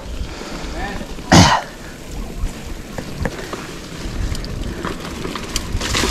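A single short cough from a rider about a second and a half in, over a steady low rumble of wind on the microphone while riding.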